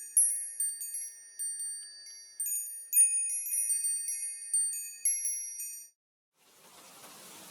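Chimes ringing in many high, overlapping struck notes that each ring out, stopping about six seconds in. After a brief silence, rain fades in near the end.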